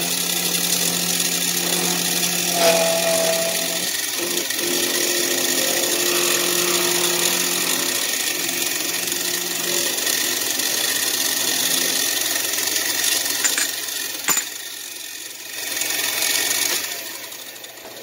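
Small milling machine's spindle running while its end mill cuts into a hand-fed metal block, a loud steady cutting noise. The cutting noise thins out and drops away near the end.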